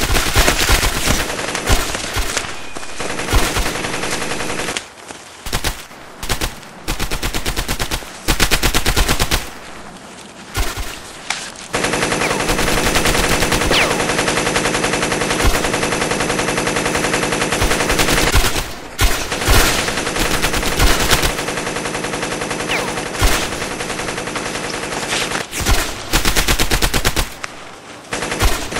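Machine-gun fire in long, very rapid bursts, the sound of a German MG42, with shorter bursts and single shots in between. The longest burst runs about six seconds near the middle.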